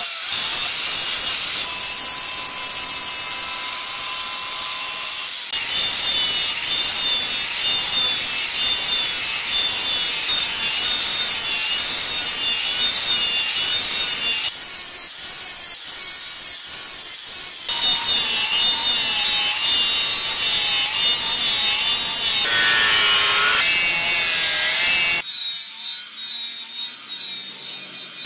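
Angle grinder with a flap disc grinding steel: a steady rasping hiss with the motor's whine wavering up and down as the load changes. The sound breaks off and restarts at several cuts, and it is quieter and thinner in the last few seconds.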